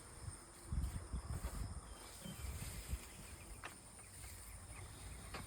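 Outdoor summer ambience: a steady high insect drone of crickets, with soft low thumps of the phone being handled or walked with, the loudest about a second in, and a couple of faint clicks.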